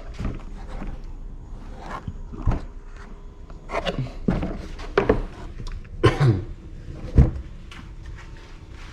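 Scattered knocks and clunks, some with a short scrape, as a soundbar and its mounting brackets are handled and fitted onto an ATV's plastic hood.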